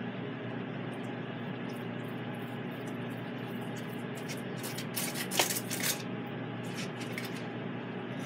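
Knife and fork cutting cooked pork tenderloin on a foil-lined plate: scattered light clicks and scrapes of metal utensils, with a cluster of them about five to six seconds in, over a steady background hum.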